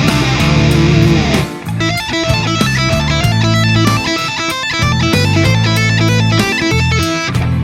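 Electric guitar played through an M-Vave MK300 multi-effects pedal: a heavily distorted, sustained sound gives way about a second and a half in to a cleaner, quickly picked run of single notes.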